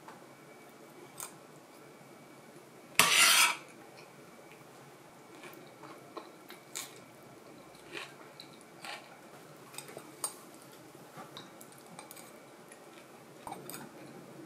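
Cutlery clinking and scraping against metal pans as someone eats, in scattered light taps, with one louder half-second scraping clatter about three seconds in.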